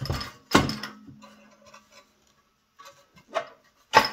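Metal clanks and clicks from the steel float-ride seat suspension of a John Deere 3010 tractor being worked by hand. One louder knock about half a second in leaves a low ring, then a few light clicks and another sharp knock near the end.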